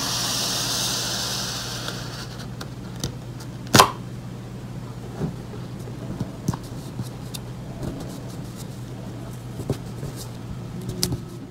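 A sheet of paper being slid onto a desk and set in place by hand: a hiss that fades over the first two seconds, then scattered light taps and one sharper knock about four seconds in. A steady low hum runs underneath.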